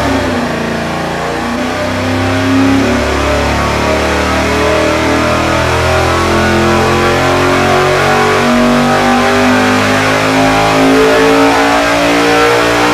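Small-block 350 V8, fitted with roller rocker arms, running a full-throttle engine-dyno power pull, its pitch climbing steadily as it revs past 6,000 rpm.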